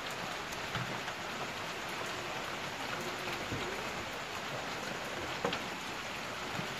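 Light rain pattering steadily, a drizzle. A small knock about five and a half seconds in.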